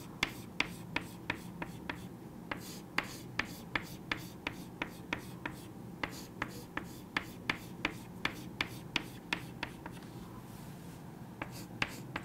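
Chalk tapping and ticking against a chalkboard as a diagram is drawn: a faint run of short, sharp taps, about three a second, with a pause of a second or so about ten seconds in.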